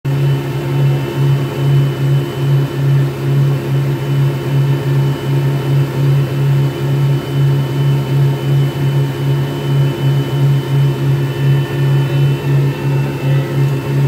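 Twin petrol outboard motors running steadily at speed, their low hum throbbing about twice a second, with the rush of the churned wake water beneath.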